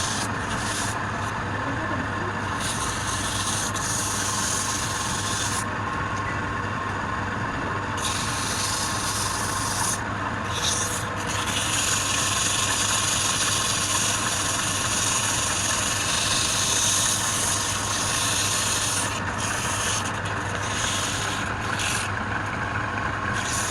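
Wood lathe running with a steady hum while a tool rubs against the spinning wood, a hissy scraping that stops and starts several times as the tool is lifted and set back.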